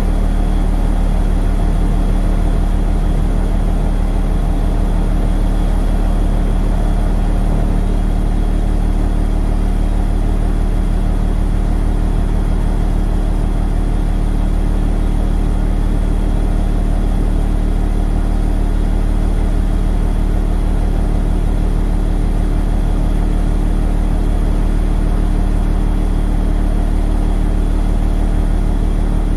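Engine of a low-floor city bus idling steadily, a low even hum with a fast throb underneath, heard from inside the rear of the passenger cabin.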